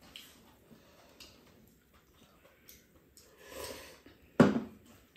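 Ramen noodles being slurped off chopsticks: soft eating sounds, a longer slurp about three and a half seconds in, then one short, loud slurp a little past four seconds.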